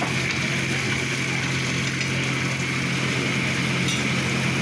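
Steady roar of a gas burner at full flame under a wok, running without a break, with a low steady hum underneath.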